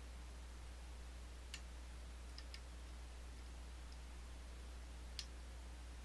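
A few faint, sharp metallic clicks from a lock pick working the side pins of an Assa Twin Exclusive lock, the loudest about five seconds in, over a steady low hum.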